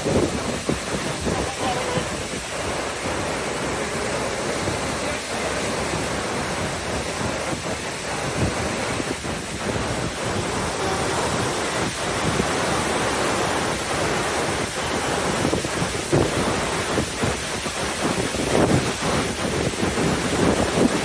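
Steady rush of the Tawi River swollen after heavy rain, with wind buffeting the microphone.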